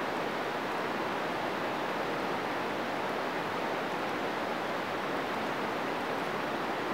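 Steady, even rushing of flowing water, holding one level throughout.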